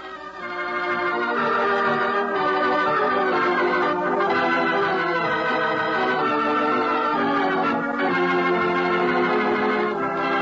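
Organ music: sustained chords that swell up in the first second or so and then play on at an even level.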